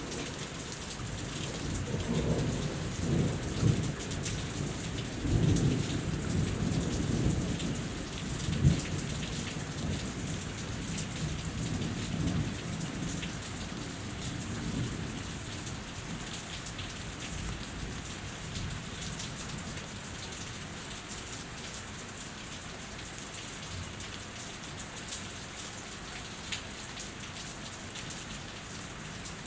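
Steady rain falling and dripping off a house, with thunder rolling through the first half. The thunder swells to its loudest about nine seconds in and fades out by about fifteen seconds.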